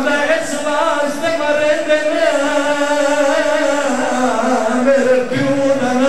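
A man's voice chanting a melodic Punjabi lament into a microphone, long held notes that waver and bend in pitch, as a zakir does in the mourning part of a Muharram majlis.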